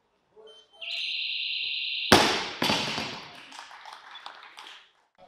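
A steady electronic buzzer tone sounds for just over a second: the competition's down signal that the lift is complete. Then a loaded barbell with bumper plates is dropped from overhead onto the lifting platform with a loud bang, bounces once about half a second later, and rattles as it settles.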